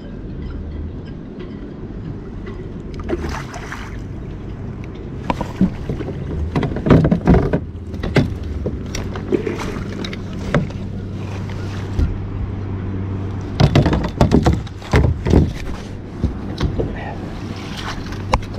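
Handling noise in a kayak: clothing rubbing and pressing over the camera microphone, with irregular knocks and thumps, over a steady low hum.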